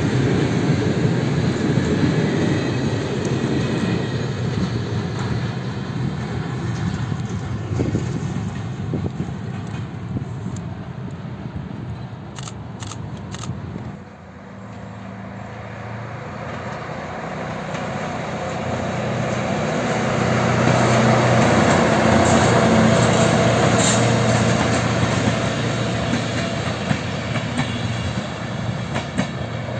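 A long train of loaded open-top freight wagons rolling past with a steady clatter of wheels over the rail joints. Then an SU4220 diesel locomotive passes hauling passenger coaches, its steady engine note and the coaches' wheel noise building to their loudest partway through and easing off.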